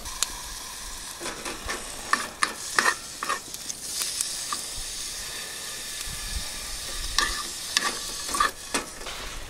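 Fat sizzling as it fries in a small metal pan over charcoal. Two runs of clicks and scrapes, one near the start and one near the end, come from chopsticks stirring it against the pan.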